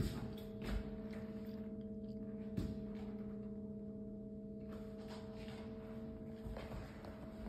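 Steady low hum made of a few held tones, with a few short soft thumps, the loudest near the start and about two and a half seconds in.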